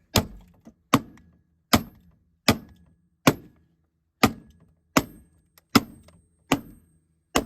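Hammer blows on metal: about ten steady, evenly spaced strikes a little under a second apart, each with a short metallic ring.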